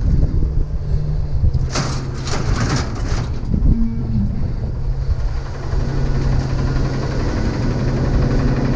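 Vehicle engine running with a steady low hum. A few sharp rattles or clicks come about two to three seconds in.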